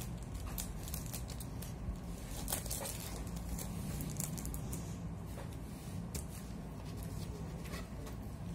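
Paper being cut with scissors and handled: scattered short snips and rustles over a low steady hum.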